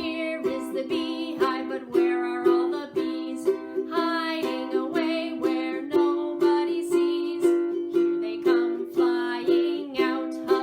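Ukulele strummed in a steady rhythm, about two strums a second, accompanying a voice singing a children's song.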